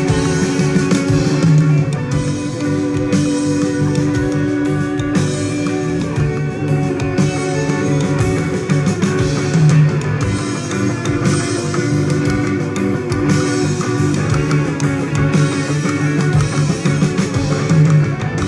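Instrumental passage of a rock song: guitars over bass and drums, with no vocals.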